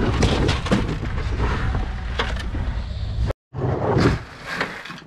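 A vehicle running, with rattling and knocking as things shift against metal. It cuts off abruptly about three seconds in, followed by scattered knocks and rustling.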